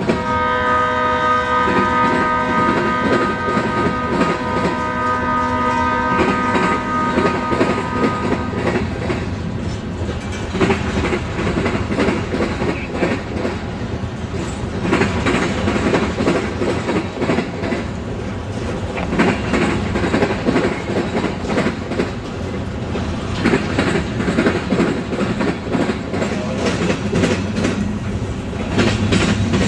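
Freight locomotive's air horn sounding a held chord of several tones, which stops about eight seconds in. After that, train wheels keep clicking and rumbling over the rail joints as the cars roll past.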